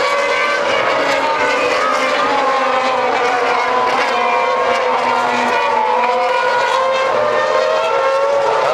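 Several Formula 1 cars' 2.4-litre V8 engines running at high revs as the cars pass in a stream, their overlapping notes rising and falling with gear changes and passing.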